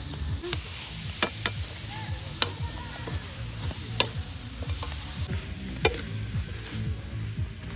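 Food being stirred as it fries in a cooking pot: a steady sizzle, with irregular sharp clicks and scrapes of the stirring utensil against the pot.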